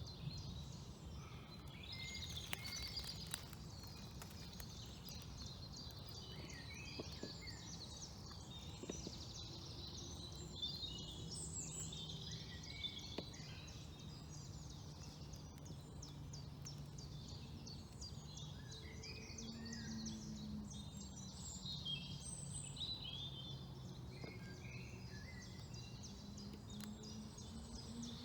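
Several wild songbirds singing at once, many short overlapping calls, over a steady low rumble. A faint low hum rises slowly in pitch over the last several seconds.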